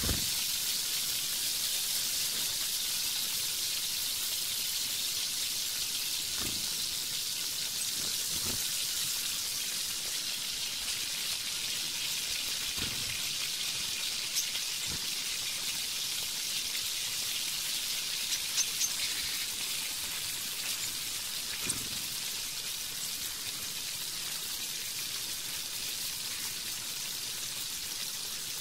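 Hot oil sizzling steadily in a large wok (karahi) as fried onions and whole spices cook, with a few faint knocks of the metal strainer and spatula against the pan.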